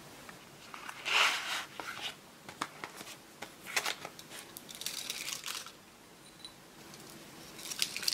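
Cardboard box of Kiri cream cheese portions torn open, the loudest crackle about a second in, followed by rustling and crinkling of the foil-wrapped cheese portions. Near the end the foil wrapper crinkles as it is peeled off a portion.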